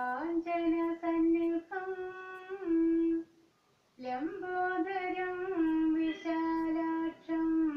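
A woman's solo voice chanting a devotional slokam in long held, gliding notes, with a short breath pause about three seconds in.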